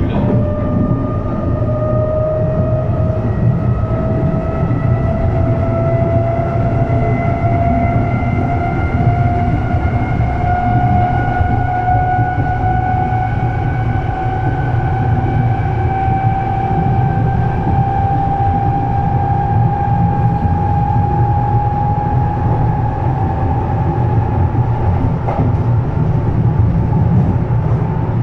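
Berlin S-Bahn class 485 electric train heard from inside the car, over a steady low rumble of the running gear. Its drive whine climbs slowly and steadily in pitch as the train picks up speed.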